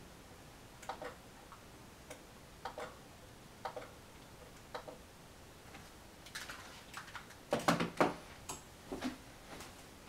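Sparse light clicks and taps from a person moving about and handling things. About three-quarters of the way through comes a louder cluster of knocks and shuffling.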